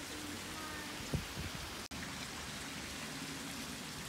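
Steady outdoor hiss, with a single thump just over a second in and a brief dropout a little before two seconds.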